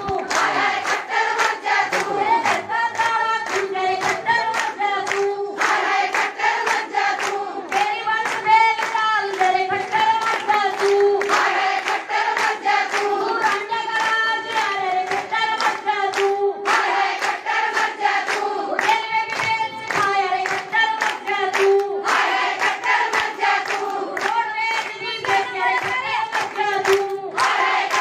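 A large crowd of women singing together in unison, clapping their hands to a steady beat.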